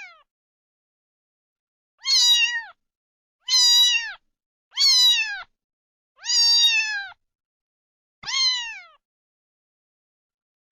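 Domestic cat meowing five times at irregular intervals, each meow short and high, falling in pitch at the end.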